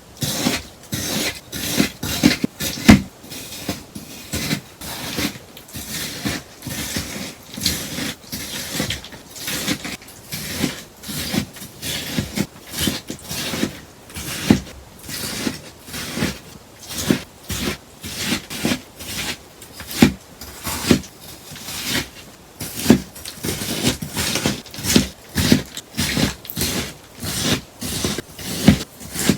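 Scissors cutting a sponge in a steady run of crisp snips, about two a second.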